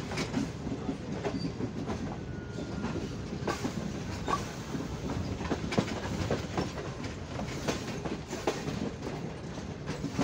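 Passenger coach wheels running over rail joints and the points of a junction yard: a steady rumble with irregular sharp clicks and knocks, heard from the coach's open window.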